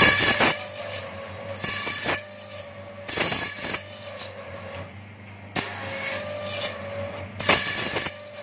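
Bamboo satay-skewer slicer-planer machine running: a steady electric motor hum with irregular bursts of cutting noise, every one to two seconds, as bamboo strips are fed through its rollers and planer blades.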